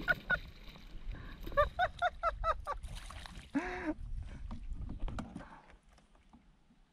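A hooked fish splashing at the surface and being reeled in beside a kayak, with rumble and knocks from handling the rod and hull. Over it comes a run of short pitched calls, several in quick succession about two seconds in and one longer call near four seconds.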